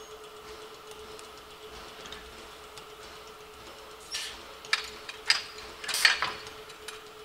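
Steam locomotive standing in steam, with a steady hum and faint ticking, broken about four to six seconds in by a few loud, sharp metallic clanks, the loudest near the end.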